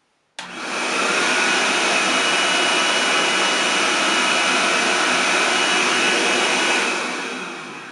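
XPower B-2 pet dryer's brush-motor blower running on its low speed: it starts suddenly, settles into a steady rush of air with a thin high motor whine, then winds down near the end.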